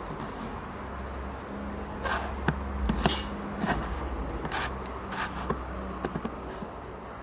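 A bee buzzing close by with a steady low drone that starts about half a second in and fades near the end. A few short ticks sound over it.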